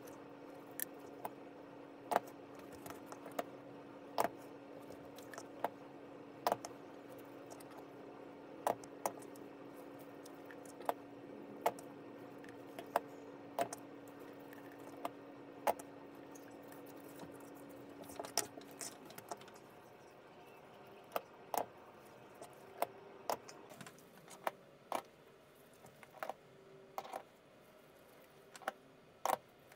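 Scattered small clicks and taps, roughly one every second or two, from hands working a hot glue gun and cut petals on a cutting mat. A faint steady hum stops about two-thirds of the way through.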